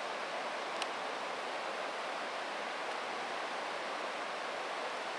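Merced River rushing steadily below Vernal Fall, a constant even white-water noise.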